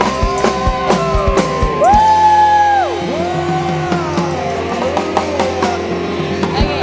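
Instrumental passage of pallapa band music: regular drum beats for about two seconds, then a held melody line that bends up and down in pitch over the band.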